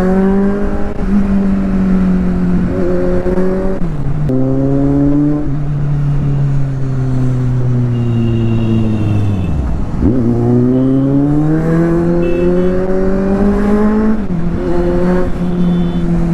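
Kawasaki Z800's inline-four engine pulling on the move, its pitch climbing under throttle and dropping sharply at gear changes several times.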